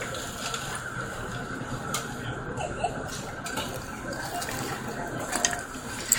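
Airport apron ambience: a steady hum and faint high whine from aircraft and ground equipment, with a few light clicks and a sharp click near the end.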